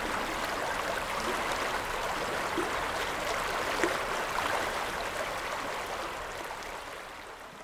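Shallow creek water running over a rocky riffle: a steady rush with small splashing sounds, fading out near the end.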